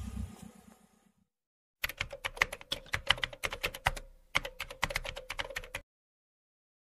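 Keyboard typing sound effect: two runs of rapid key clicks with a short break between them, starting about two seconds in. A low background rumble fades out in the first second.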